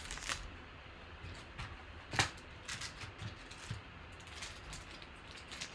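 Scattered light clicks and taps of sports cards in plastic holders being handled on a tabletop, the loudest a single sharp tap about two seconds in.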